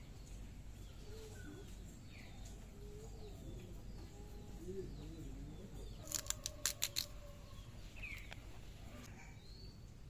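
Birds chirping now and then with short, quick calls, over a faint background. About six seconds in comes a quick run of about six sharp clicks, the loudest sound here.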